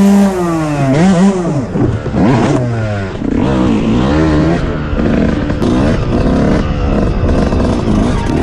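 Dirt bike engine being ridden, revs swinging up and down several times in the first few seconds as the rider accelerates and shifts, then running at a steadier pace with smaller rises and falls.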